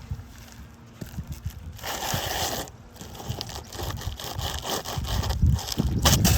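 Scraping and crackling against asphalt roof shingles, in irregular bursts; the longest comes about two seconds in and a sharper pair of scrapes comes near the end.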